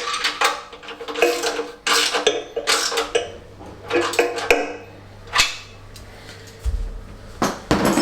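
Irregular metallic clinks and taps as bolts, washers and nuts are fitted through a Fiat 500 engine's sheet-metal fan cowling, several with a brief ringing of the thin metal.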